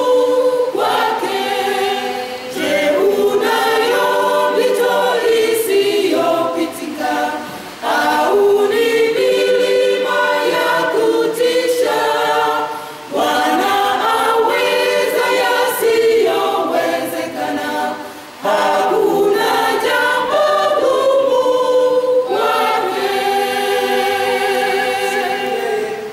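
Mixed choir of men and women singing a cappella, line by line with brief breaks between phrases.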